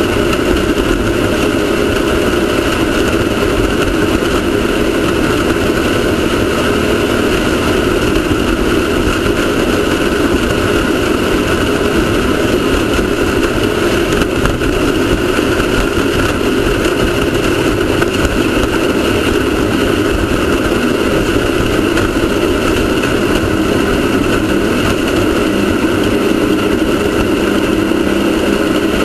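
Off-road race car's engine running steadily at a constant pitch, under a loud, even rush of noise.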